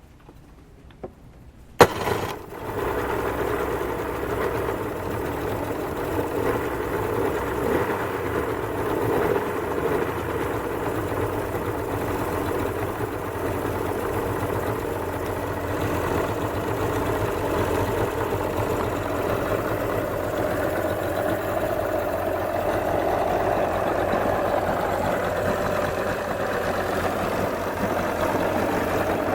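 1989 Suzuki 30 hp three-cylinder two-stroke outboard engine catching about two seconds in and then running steadily, its speed creeping up a little in the second half. It is running on all three cylinders with a replacement fuel pump fitted, the cure for its earlier misfire and popping.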